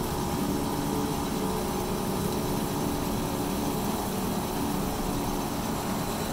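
Smithy 3-in-1 lathe-mill running steadily, its half-inch carbide end mill cutting through a metal plate: an even machine hum with a constant pitch.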